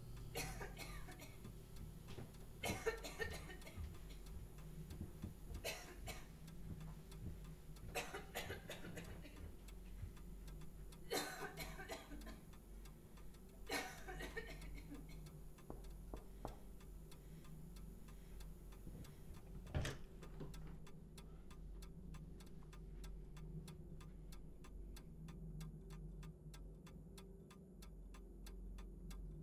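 Scattered heavy thuds and knocks a few seconds apart over a low steady drone, then from about two-thirds of the way through, a clock ticking steadily.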